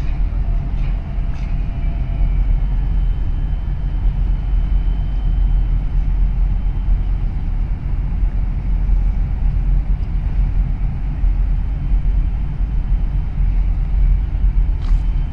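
Steady low rumble heard from aboard a small moving boat: its engine running, mixed with wind on the microphone and water noise.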